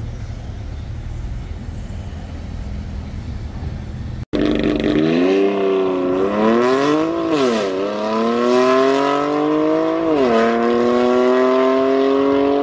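A car engine idling with a low, steady rumble, then a sudden cut to a much louder car engine accelerating hard through the gears: its pitch climbs, drops back sharply at each upshift, and climbs again.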